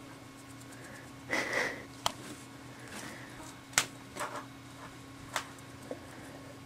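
Plastic water bottles knocking and clicking as a ferret pushes among them: a short rustle about a second in, then a scatter of sharp taps. A steady low hum sits underneath.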